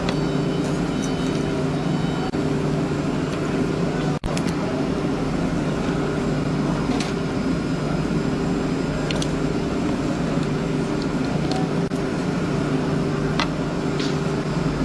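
Woodworking machinery running with a steady low hum, a few faint short ticks over it. The sound drops out for an instant about four seconds in.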